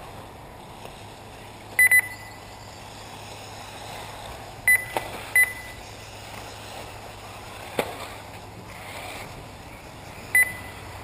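Short, loud electronic beeps, all at the same pitch, from an RC race lap-timing system signalling cars crossing the timing line: a quick double beep about two seconds in, two more around five seconds, and one near the end. Underneath is a steady background hiss with a couple of sharp knocks.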